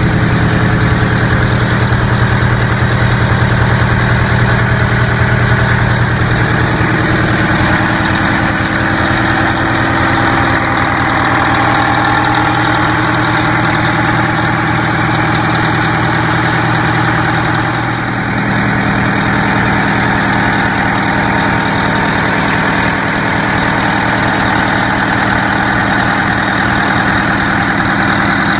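The 575 hp Detroit Diesel engine of a 1997 Oshkosh T-3000 aircraft rescue truck idling steadily, heard close up in the open engine compartment.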